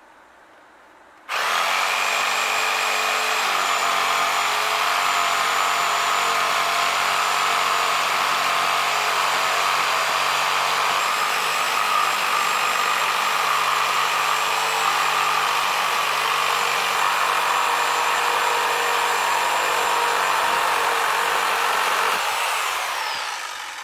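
Electric jigsaw cutting through a wooden board with a newly fitted blade. The motor starts abruptly about a second in, runs steadily through the cut, and near the end is switched off and winds down with a falling whine.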